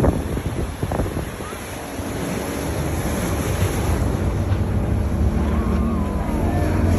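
Wind buffeting the microphone and water rushing past a moving motorboat's hull, with a low engine drone that grows steadily louder toward the end as another speedboat closes in.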